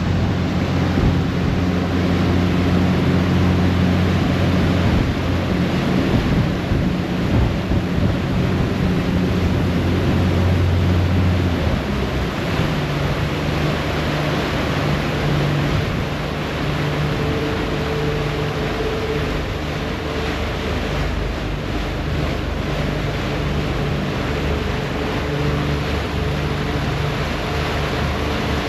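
Harbour ferry's engine droning steadily under the rushing, churning water of the propeller wake at the stern. About twelve seconds in, the engine note shifts to a different pitch and the whole sound gets a little quieter.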